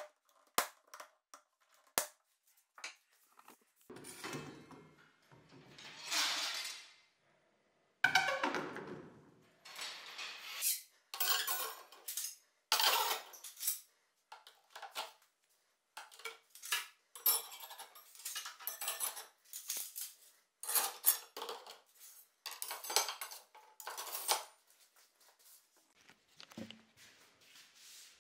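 Metal rods, threaded rods and rotary-hammer drill bits clattering and clinking as they are slid and dropped into upright PVC pipes. There are a few sharp taps near the start, and a dense run of rattling metal through the middle.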